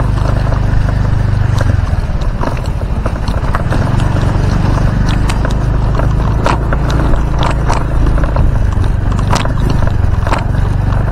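Motorcycle engine running at low speed on a rough dirt track, with irregular knocks and rattles as the bike goes over bumps.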